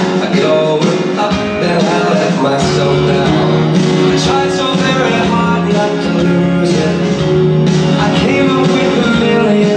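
Foxtrot dance music playing steadily and loudly, a song with held notes and a steady beat.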